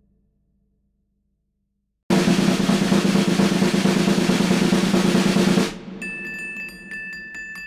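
Background music: silence for about two seconds, then a loud snare drum roll that cuts off suddenly, followed by a quieter, evenly ticking percussion beat with two held high tones.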